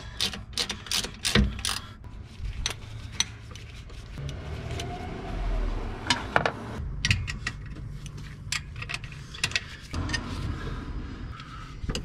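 Hand wrenches and sockets clicking and clinking against metal engine parts in irregular knocks while bolts on the PCV system are worked loose.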